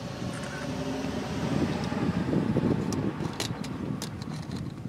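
Gusty wind rumbling on the microphone in open country, with a few light clicks about three to four seconds in.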